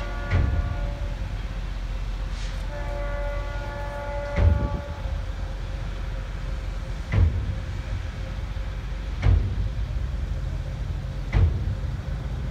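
Diesel locomotive air horn sounding from an approaching Florida East Coast Railway freight train: a blast that cuts off about half a second in, then a second, longer blast of about two seconds. A steady low rumble runs underneath, with a short thump every two to three seconds.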